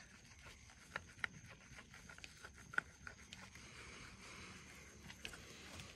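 Wet paper towel faintly wiping across a helmet's plastic visor, with a few light clicks and a soft rubbing hiss near the middle.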